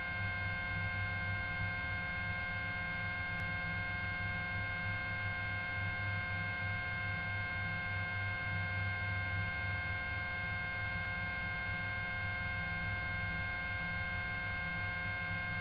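Steady hum with several steady high tones over a low throb: the background of a police helicopter's onboard audio feed between radio calls.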